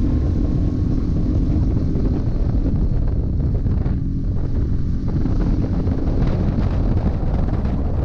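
Mercury ME F 5 M single-cylinder four-stroke outboard running steadily at speed, the inflatable boat up on the plane, mixed with wind buffeting the microphone.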